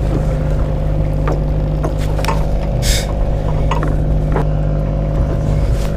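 Fishing boat's engine running at a steady idle, a continuous low drone, with a few short clicks and knocks over it.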